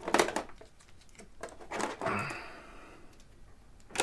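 Light knocks and clicks of objects being handled, with a brief rustling shuffle about two seconds in, as someone searches for something.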